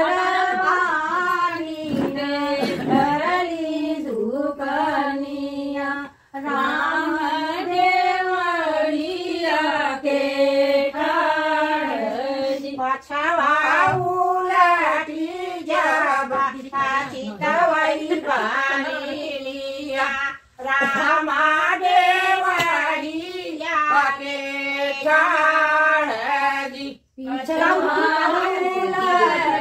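Women singing a traditional North Indian wedding song (shaadi geet) unaccompanied, line after line, with a few brief breaks between phrases.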